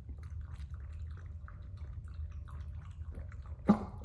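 Small dog lapping water from the plastic trough of a portable pet water bottle: a run of quick, soft, wet clicks. A single brief louder sound cuts in near the end.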